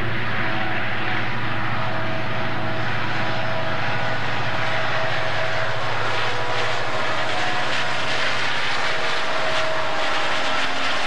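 Santa Fe diesel-electric freight locomotives passing close by, engines working under load on the eastbound climb of Cajon Pass: a steady deep engine drone. Wheel and rail clatter grows from about halfway as the units roll past.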